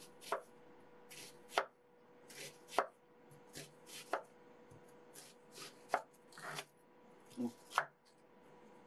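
An onion being sliced with a kitchen knife on a wooden cutting board. There are six or seven unhurried strokes, about one a second, each a crisp crunch through the onion ending in a knock of the blade on the board.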